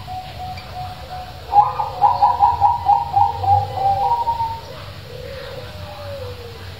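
Zebra dove (perkutut) with a big voice singing: soft repeated coos, then about one and a half seconds in a loud run of rapid, pulsing cooing notes lasting about three seconds, followed by softer, lower gliding coos.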